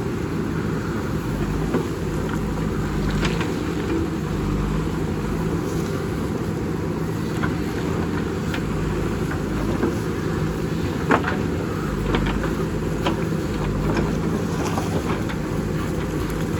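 JCB backhoe loader's diesel engine running steadily under work, with a few sharp knocks, the loudest about eleven seconds in.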